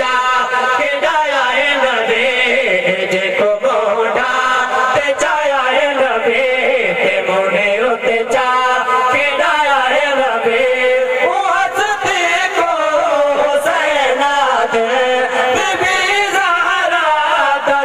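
Male voices chanting a devotional kalam in long, drawn-out melodic lines, with notes held and sliding, heard through microphones and a loudspeaker system.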